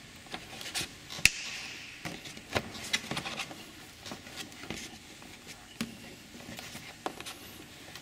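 Plastic clicks and rubbing as a fog-light surround panel with built-in LED lights is handled and pressed into a car's front bumper, with one sharp click about a second in and a few lighter clicks after.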